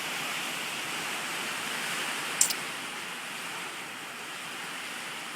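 Steady rushing hiss of heavy hurricane rain and wind, with one short sharp click about two and a half seconds in.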